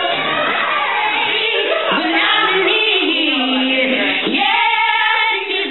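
A song with several voices singing together.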